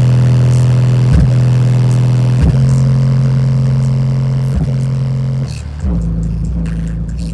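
Bass-heavy music played loud through two car-audio subwoofers driven by a Gravity E5000.1D 5000-watt amplifier. It is a series of long held bass notes that change pitch every second or two, dropping to a deeper note near the end.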